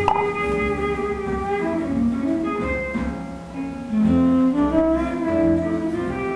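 Instrumental background music: a slow melody of held, pitched notes.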